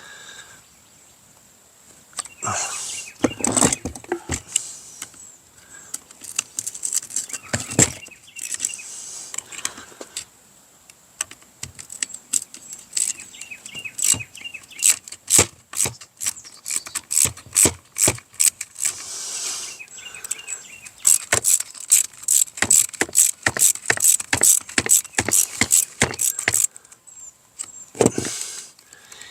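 Clicks, taps and clinks of hand tools and small metal and plastic parts being handled while a two-stroke weed whacker is taken apart. They are scattered at first and come in a quick run of sharp clicks in the second half.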